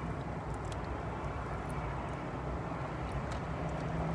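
Steady low rumble of a car's cabin, with a few faint clicks from eating.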